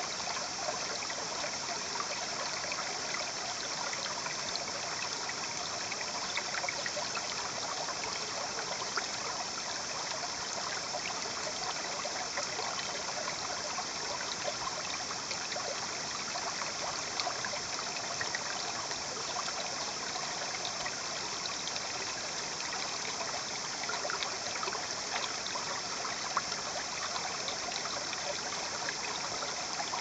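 Shallow river water flowing, a steady rushing and trickling with fine crackling throughout.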